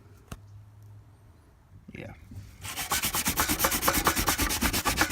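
Sandpaper scrubbing back and forth on a yellowed plastic headlight lens. The wet sanding starts about two and a half seconds in as quick, even strokes, roughing up and taking off the oxidised yellow surface.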